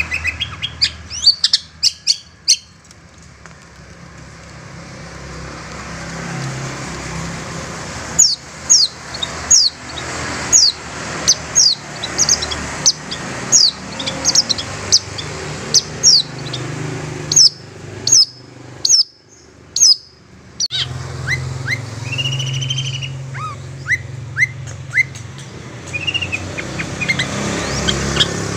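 Long-tailed shrike (cendet) calling as a lure for wild shrikes: a run of sharp, high chirps, each sliding downward, about two a second, broken by a short pause and resuming lower in pitch. A low steady hum lies underneath.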